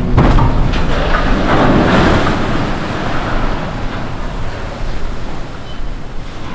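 Rushing and splashing of water as a ship slides sideways off the slipway into a canal and throws up a large wave, mixed with wind buffeting the microphone. The rush is loudest about two seconds in and then slowly fades.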